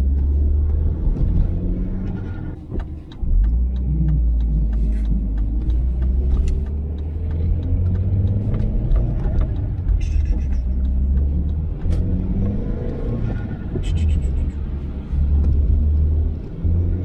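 Audi 1.8-litre turbo four-cylinder quattro driving, heard from inside the cabin: a steady low rumble of engine and road, with the engine note rising and falling as it pulls. The sound drops briefly about three seconds in.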